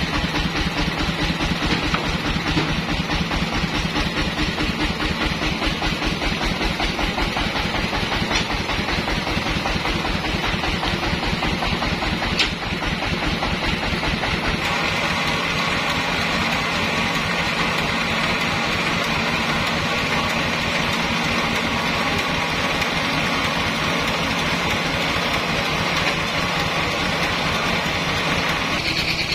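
A sawmill's engine running steadily with an even low pulsing; about halfway through the sound changes, the pulsing easing and a higher, smoother note coming in.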